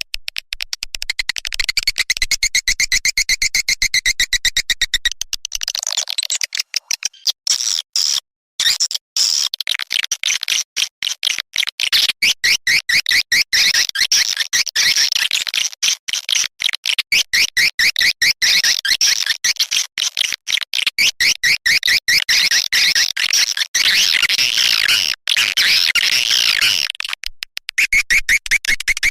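Swiftlet calling-sound lure track: a fast, dense run of high-pitched twittering chirps from edible-nest swiftlets, repeated many times a second with brief breaks, used to draw swiftlets into a bird house.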